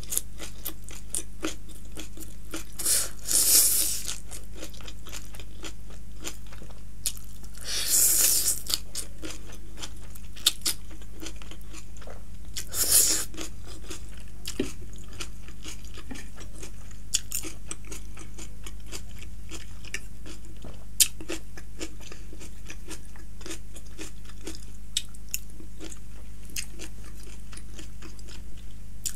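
Close-miked mouth sounds of a person eating chow mein noodles with vegetables: loud slurps of noodles about three, eight and thirteen seconds in, between wet chewing with many small clicks.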